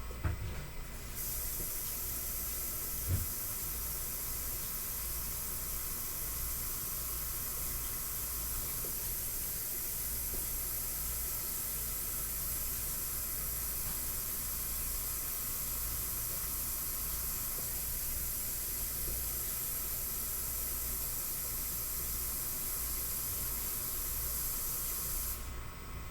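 Water running from a tap: a steady hiss that starts suddenly about a second in and cuts off near the end.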